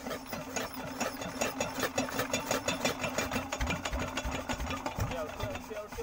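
Small single-cylinder diesel pump engine turning over with a fast, even knocking, a few heavier thumps partway through, and dying away near the end.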